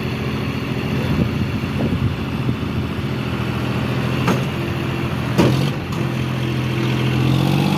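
Two John Deere tractors' diesel engines working under heavy load, the front tractor helping pull the second tractor and its loaded trolley. The engine note is steady and rises slightly near the end, with two sharp knocks in the middle.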